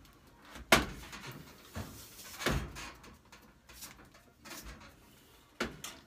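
Sharp knocks and clatters from handling a pulled-out clothes dryer and its heavy power cord against the sheet-metal cabinet. There are about five knocks, the loudest less than a second in, with light scraping between them.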